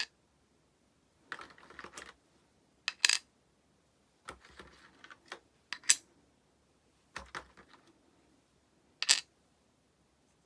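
Small plastic Prism Stone pieces and their trunk case being handled: three rounds of light clattering, each ending in a sharp click, with quiet gaps between.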